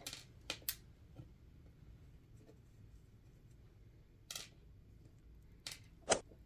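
Scattered light clicks and taps of small screws and tools being handled on a work surface: three near the start, one about four seconds in and two near the end, with near quiet between.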